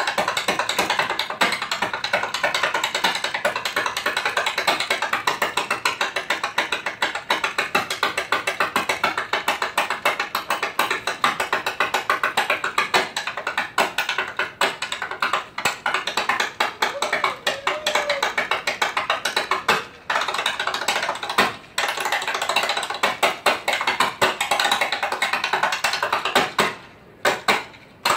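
Tap shoes striking a wooden stage floor in a fast, unbroken stream of sharp taps, with a few short pauses near the end.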